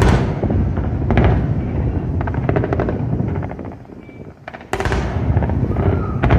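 Aerial fireworks going off in quick succession: repeated booms with crackling over a continuous low rumble. The level drops briefly about four seconds in, then a sharp loud bang.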